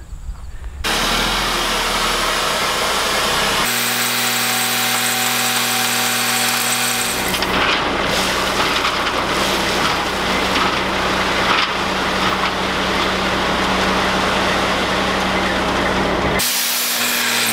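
Dump truck's diesel engine running steadily under load to work the hydraulic hoist while the bed tips, with crushed limestone gravel sliding and pouring out of the bed in a continuous rushing hiss. The sound changes abruptly a few times.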